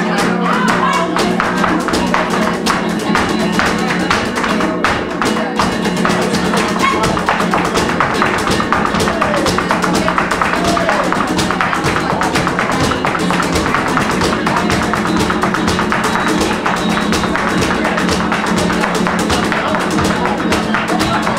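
Live flamenco music: guitar playing under a dense, continuous run of sharp percussive taps from the dancer's footwork, handclaps and a cajón.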